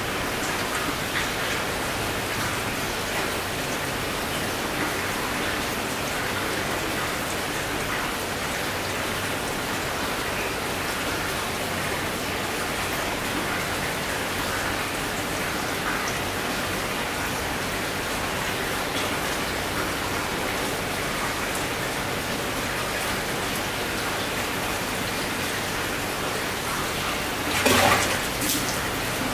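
Steady hiss and patter of aquarium water bubbling from an air stone. Near the end, a loud, sudden splash as an aimara wolf fish strikes and grabs a frog at the surface.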